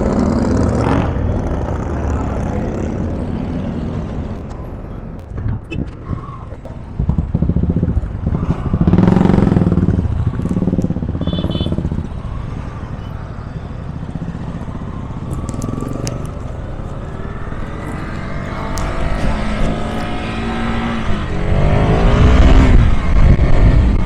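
Motorcycle engine running on the move, its revs climbing steadily in the second half as it accelerates, loudest near the end.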